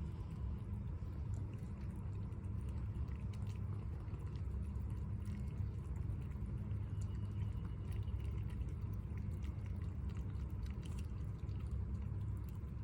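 Cats eating, smacking and slurping: a run of small, irregular wet clicks and licks over a steady low hum.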